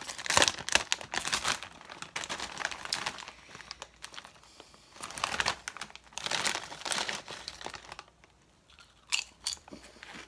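Foil-lined potato chip bag being torn open and crinkled as a hand rummages inside for a chip, followed near the end by a few sharp crunches as a wavy potato chip is bitten.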